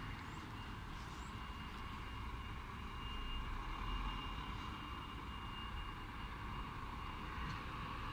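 Fire engine's diesel engine running at low revs as the truck reverses slowly into a station garage bay, a steady low rumble with a faint steady high tone above it.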